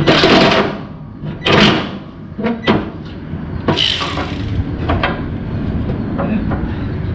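Hand work on a car's brake hose fitting: three short scraping bursts and several sharp clicks of tools and parts being handled, over a steady low hum.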